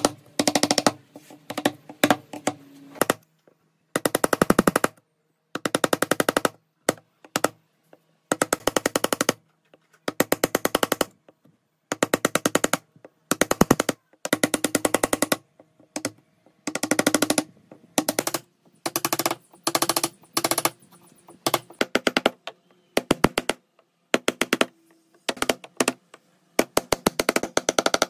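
Rapid runs of sharp clicks or taps, each run lasting about a second, repeating with short pauses between them.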